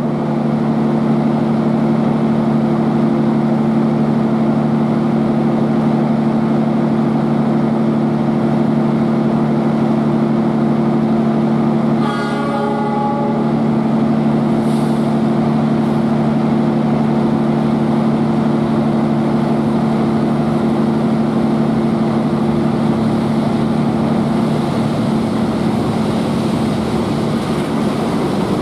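Diesel locomotive hauling a train of tank wagons approaches, its engine running with a steady, even drone.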